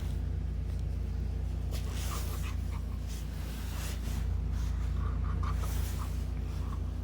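Interior of a moving 2018 Blue Bird Vision propane school bus: steady low engine and road drone, with short hisses and light rattles now and then.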